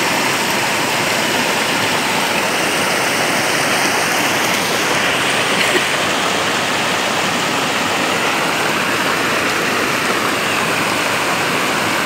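Creek water rushing and cascading over rock slabs in a steady, loud rush of a small waterfall.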